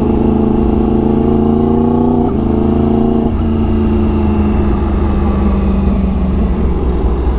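Exhaust of a 2016 Yamaha R1's crossplane inline-four through a full Arrow exhaust, running at low revs while cruising slowly. The pitch steps down twice, a little past two and three seconds in, then drifts slowly lower as the bike rolls off.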